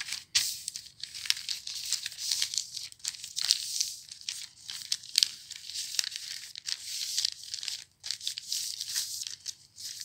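Cloth or sewing material rustling and scratching as it is handled, in quick irregular bursts.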